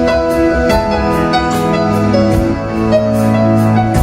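Live country band playing an instrumental passage between sung lines: held piano and keyboard chords over a steady drum beat.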